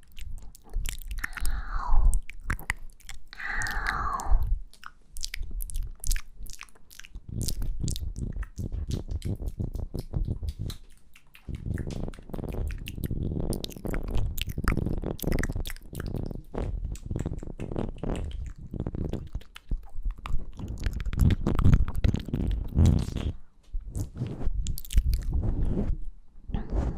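Close-up ASMR mouth sounds: soft kisses and lip smacks in dense clusters of quick, wet clicks, with breathy sounds in the first few seconds.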